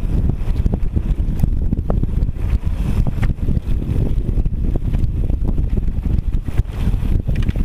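Wind buffeting the microphone of a mountain bike descending a dirt and gravel trail, with a low rumble of tyres on the loose surface and a constant scatter of small clicks and knocks from stones and the bike rattling over them.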